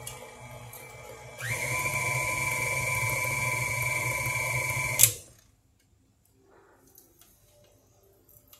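KitchenAid tilt-head stand mixer running with its flat beater in thick cookie dough. It runs at a low speed, then about a second and a half in gets louder with a brief rising whine as it speeds up, runs steadily, and cuts off with a sharp click about five seconds in.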